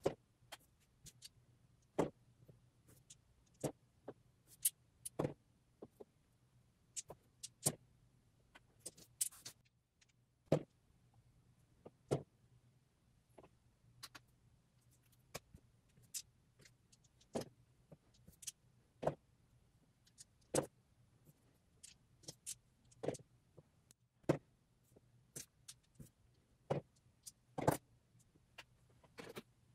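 Irregular clicks and taps of small plastic game dice and miniature pieces being rolled and set down on a play mat, one every second or two, over a faint steady hum.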